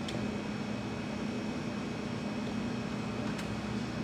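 Steady low mechanical hum of kitchen equipment, with two faint light clicks, one at the start and one a little over three seconds in.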